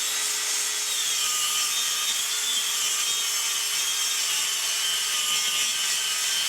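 Track saw running and ripping a strip from 12 mm plywood: a steady cutting noise with a thin whine from the motor that wavers slightly as the blade is pushed along.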